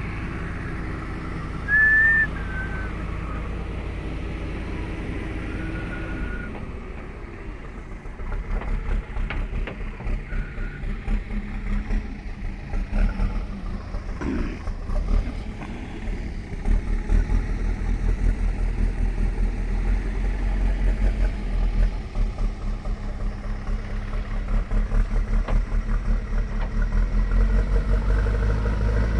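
JCB backhoe loader's Kirloskar diesel engine running, first at a steady hum with a couple of short whistles near the start. From about eight seconds in it changes to a fast, uneven throb that rises and falls in loudness.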